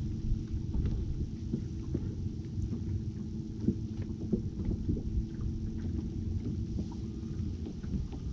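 Wind rumbling on the microphone over an open boat deck, with small water slaps and ticks against the boat's hull and a faint steady hum underneath.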